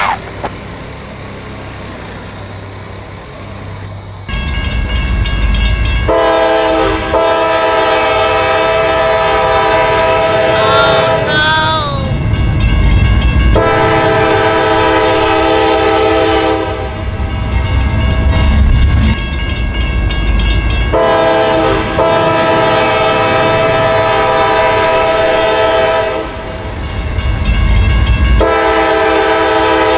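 Train horn sounding four long warning blasts over the heavy rumble of an approaching train. A brief high wavering sound cuts through about eleven seconds in.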